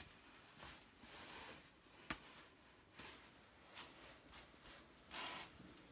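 Near silence with faint rustling and rubbing from the phone being handled and moved while filming, and one sharp click about two seconds in.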